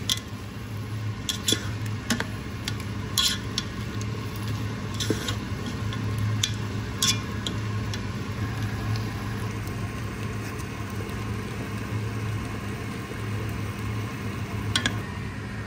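Food frying in a pot with a steady sizzle over a low hum, and a spoon clinking and scraping against the pot now and then while it is stirred.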